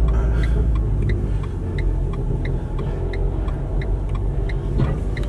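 Car engine and road noise heard from inside the cabin while driving, a steady low rumble. A light, regular ticking sounds over it, about one and a half ticks a second.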